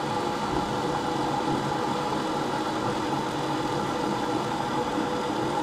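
A9521 thread-rolling machine running, its electric motor and hydraulic power unit making a steady mechanical hum with a few held tones.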